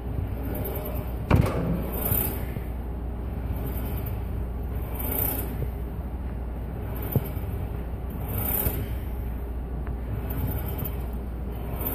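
Steady low hum of a large gym hall's air handling, with a soft hiss swelling about every three seconds. A sharp knock comes about a second in, and a faint click about seven seconds in.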